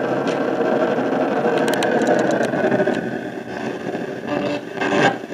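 RadioShack portable radio used as a ghost box, sweeping through the FM band: a steady hiss of static with short clicks and brief snatches of station audio, louder near the end.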